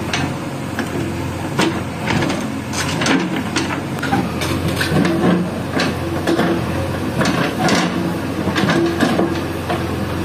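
JCB 3DX backhoe loader digging with its backhoe arm. Its diesel engine runs steadily under load, with irregular clanks and scrapes as the bucket works through soil and stones.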